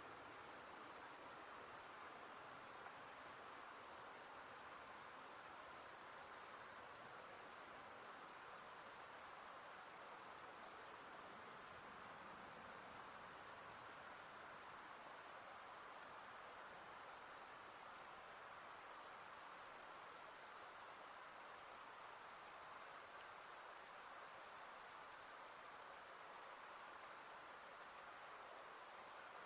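Forest night chorus of insects: a steady, very high-pitched trill that never lets up, with only slight pulsing in its loudness.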